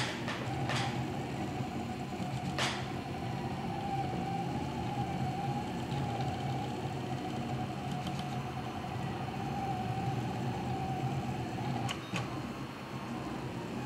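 Prusa i3 3D printer at work on the last layers of a print. Its stepper motors give a whine that wavers gently in pitch as the print head moves, over a steady low hum. There are a few sharp clicks, two in the first few seconds and one near the end.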